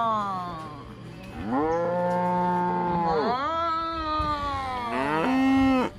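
Cows mooing: a moo trails off at the start, then come two long moos one after the other, and a short moo that cuts off just before the end.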